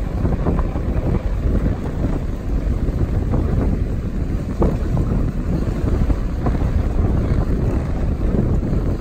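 Strong wind buffeting the microphone, a continuous low rumble, with a couple of short knocks a little past the middle.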